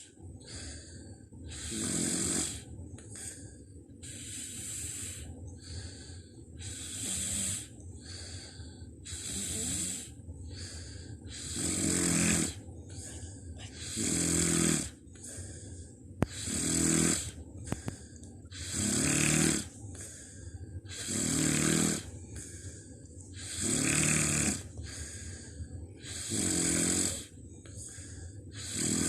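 Someone asleep snoring in a steady rhythm, about one snore every two and a half seconds. The first few snores are softer, and the ones from about twelve seconds in are louder and buzzier.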